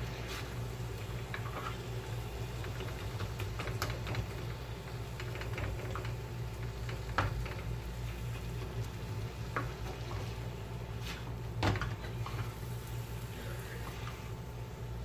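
Spatula scraping and knocking against a tawa griddle while mutton liver is stirred and fried in butter, a scrape or tap every second or so, the loudest about seven and twelve seconds in, over faint sizzling and a steady low hum.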